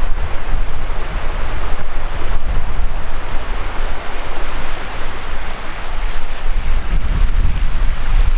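Wind blowing hard across the microphone: a steady rush with heavy low buffeting that rises and falls.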